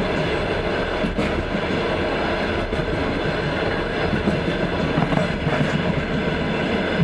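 Passenger train's wheels running on the rails: a steady rumble with a few faint knocks over the rail joints.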